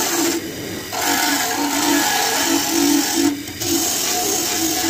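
Bench grinder's spinning wire wheel scrubbing paint off a steel motorcycle fuel tank, a steady loud grinding with a humming motor note; the grinding eases off twice, about half a second in and near three and a half seconds, as the tank is lifted and shifted against the wheel.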